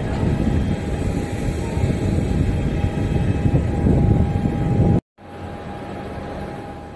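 Steady jet aircraft noise on an airport apron: a constant whine over a deep rumble, with wind buffeting the microphone. The sound cuts out briefly about five seconds in, then carries on quieter with the same whine.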